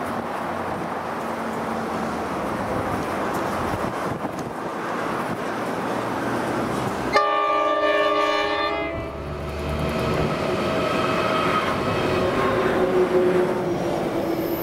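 Diesel freight locomotives hauling a steel-coil train, engines running as the train approaches. About seven seconds in the horn sounds one blast of about two seconds. Then the engines and wagons keep running as the train passes close by.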